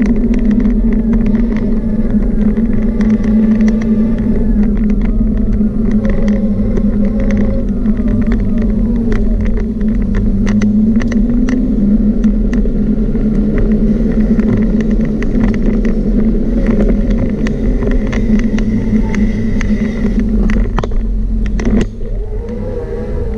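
Steady electric motor whine from a small ridden electric vehicle such as a personal mobility device, with clicks and rattles from bumps in the path. Near the end the whine dips, then its pitch rises again as it speeds back up.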